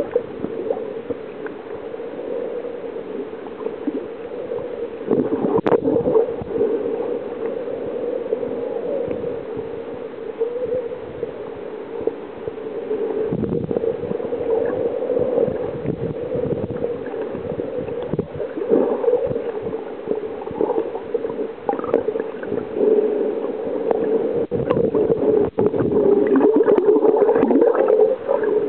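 Muffled underwater water noise picked up by a submerged camera: a steady, murky rumbling hum of moving water with occasional sharp clicks and knocks, growing a little louder near the end.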